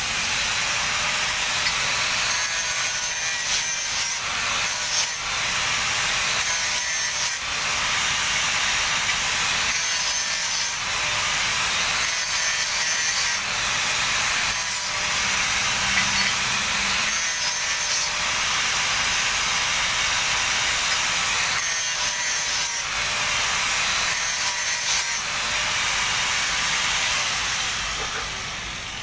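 Angle grinder working a steel padding plate: a steady high hiss of the disc on steel, with brief dips every few seconds as the pressure or angle changes, tailing off near the end.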